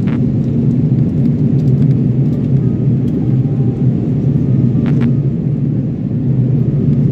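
Steady low rumble of cabin noise inside an Airbus A330-300 in flight: airflow and its Rolls-Royce Trent 772B engines heard from a window seat. A short click comes about five seconds in.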